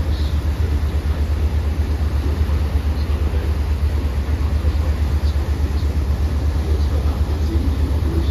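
Boat engine running steadily, a deep drone with a fast, even pulse.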